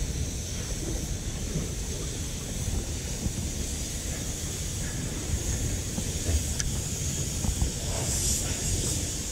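Strong wind rumbling on the microphone, over a steady hiss of choppy sea water.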